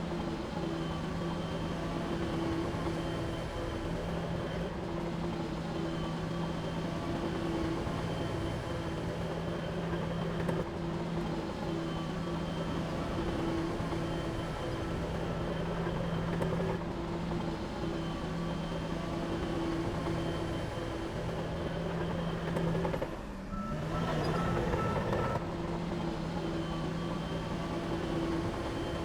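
Heavy diesel engine running steadily under load, a continuous low drone with a held low hum, briefly dipping about 23 seconds in.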